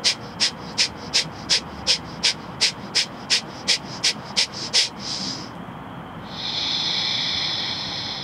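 Kapalabhati (shining skull) breathing: a run of about fourteen sharp, forceful exhales through the nose, nearly three a second, that stops about five seconds in. It is followed by a short puff of breath and then one long, slow breath.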